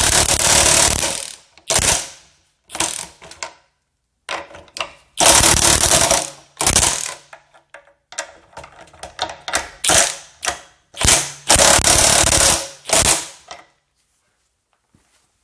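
RIDGID 18-volt brushless half-inch high-impact wrench hammering in a series of short trigger bursts, some under a second and a few longer, with brief pauses between; it stops a little before the end.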